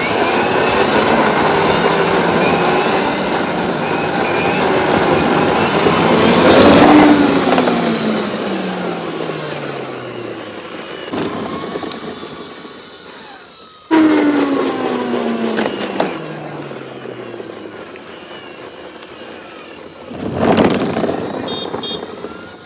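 Small toy-car motor whirring, its pitch falling steadily as it runs down. A second whir starts suddenly about halfway through and falls the same way, and a short rushing burst comes near the end.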